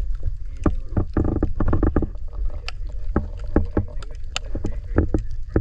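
Underwater sound from a submerged camera: a steady low rumble of water with many sharp, irregular clicks and crackles, thickening into a dense run of rapid crackling between about one and two seconds in.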